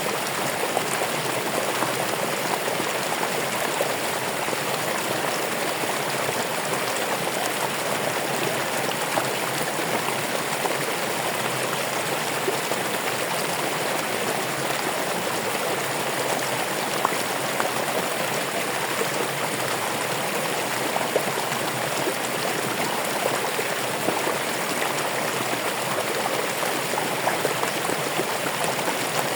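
Running water flowing steadily, an even rushing babble with small splashes now and then.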